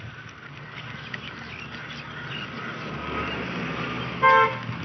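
Bicycle rolling along a dirt road: a steady rush of tyre and wind noise. A little after four seconds in comes a short, loud, steady-pitched tone, the loudest sound.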